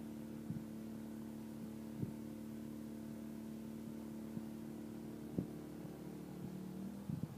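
A neighbour's pressure washer running steadily as a low engine hum, muffled by a finger held over the microphone. There are a few brief knocks, and the hum dips slightly in pitch near the end.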